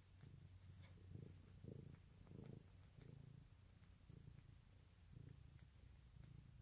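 Mother cat in labor purring faintly, a low purr that swells and fades with her breaths.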